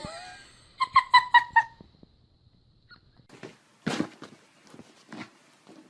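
An animal giving about five quick, high-pitched squeaks in a row, followed by scattered scuffling noises.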